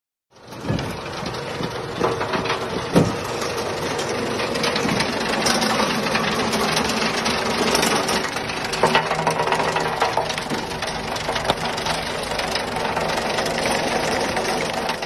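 Mobile soil screener running: its vibration motor shakes the wire-mesh screen deck with a steady mechanical rattle, and soil clods knock on the mesh now and then as they are sieved.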